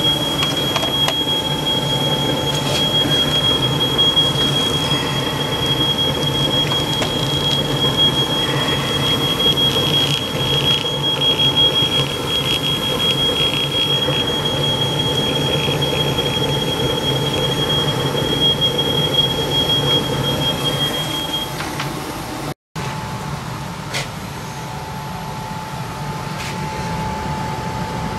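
Smoke alarm sounding a continuous high-pitched tone, set off by a newly installed Ruud 80+ gas furnace burning off its manufacturing oil, over the steady hum of the running furnace. The tone stops about three-quarters of the way through.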